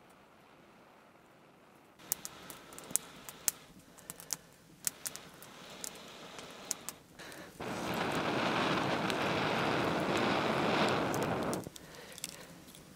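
Ember and small fire crackling and popping, then about eight seconds in a steady blowing for about four seconds that stops abruptly: breath fanning a glowing ember to burn a hollow into a linden branch.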